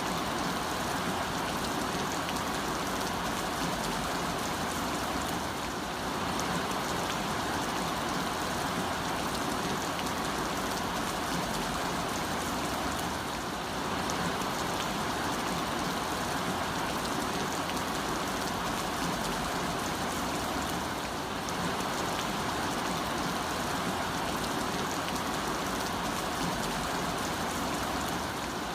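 Heavy rain falling steadily on a road: a dense, even hiss of rain.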